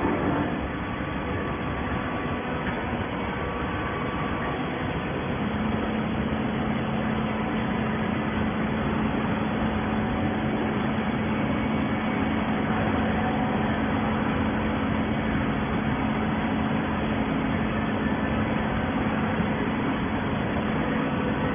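Plastic bottle baling machinery running with a steady mechanical noise; a steady hum sets in about five seconds in and holds.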